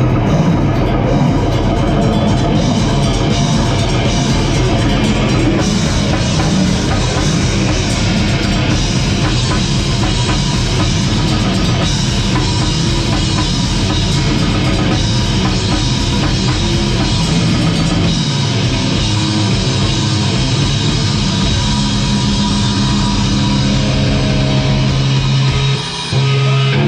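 Goregrind band playing live, with fast drumming under distorted electric guitar and bass, loud and dense. In the last few seconds the drums thin out and held guitar notes ring, with a brief break just before the end.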